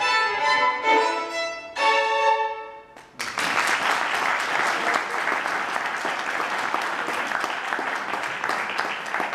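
A violin plays the closing notes of a tango, the last held note fading out about three seconds in. The audience then applauds steadily.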